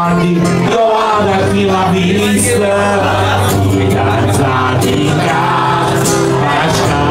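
Live music: a man singing to strummed acoustic guitar.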